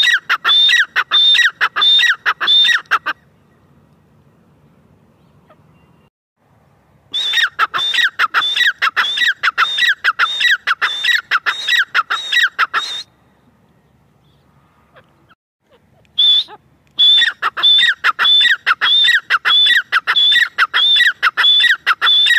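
Grey francolin calling: fast runs of short, shrill repeated notes, about three a second. The calls come in three bouts broken by pauses of a few seconds, with one lone note just before the last bout.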